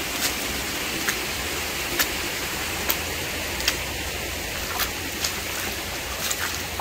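Creek water flowing steadily, with short sharp ticks about once a second over it.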